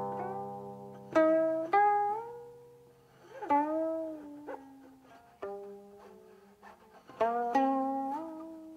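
Guqin (seven-string Chinese zither) played solo: slow, spaced plucked notes and pairs of notes, each left to ring and die away while the left hand slides along the string, bending the ringing pitch up and down.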